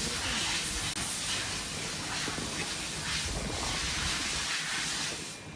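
Steady wind hiss over an open snowfield, with a low rumble underneath, cutting off near the end.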